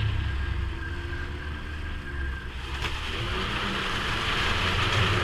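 Snowmobile engine running steadily while riding, with wind and track noise from the moving sled.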